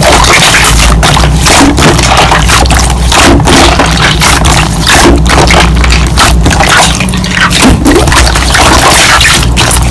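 Slime being pressed and squeezed by hand: dense, irregular crackling and squelching clicks over a steady low drone.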